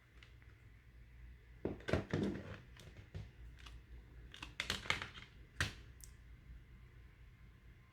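A CD package being unwrapped by hand: plastic wrapping crinkling and tearing in irregular bursts, with sharp clicks and a final sharp click about five and a half seconds in.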